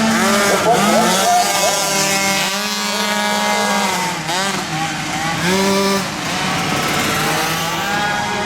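Several flat-track race engines revving hard, their pitches rising and falling and overlapping as the field goes through the turns and down the straights.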